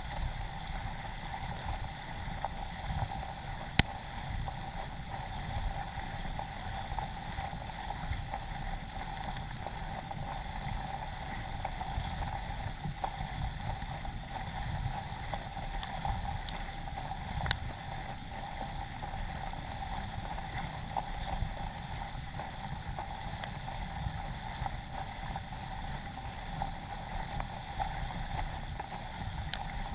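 Water rushing and splashing along the hull of an Epic K1 racing kayak under steady paddling, with paddle-blade splashes and wind rumbling on the deck-mounted camera's microphone. A few sharp ticks stand out, the loudest about four seconds in.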